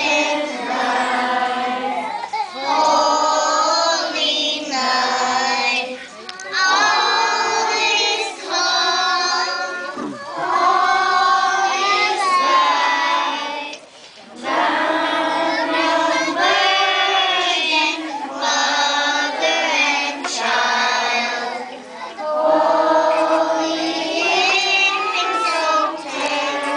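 A group of young children singing a Christmas carol together, in sung phrases of a few seconds with short breaks between them.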